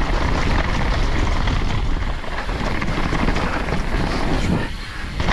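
Wind rushing over the camera microphone and mountain-bike tyres rolling over a dirt trail on a fast downhill run: a steady rushing noise that briefly falls away shortly before the end.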